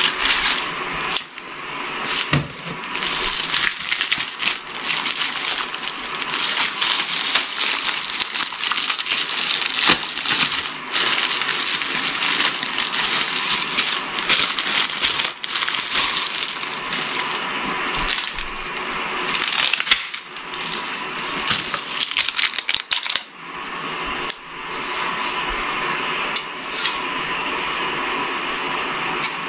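Branches of an artificial Christmas tree being handled and spread: plastic needles rustling and crinkling, with many quick clicks as the branches are bent. About 23 seconds in the handling stops, leaving a steady hiss.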